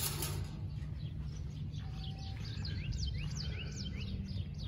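Small birds chirping: a quick series of short, sweeping chirps repeated many times, over a steady low background rumble.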